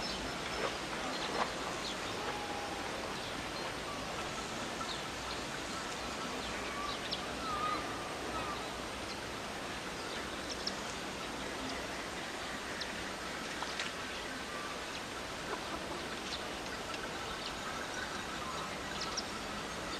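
Steady outdoor background hiss with faint, scattered short chirps and ticks.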